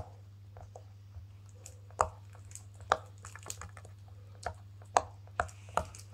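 Bubbles of a silicone pop-it fidget toy pressed with a finger, making short sharp pops one at a time at irregular intervals, the loudest about two, three and five seconds in.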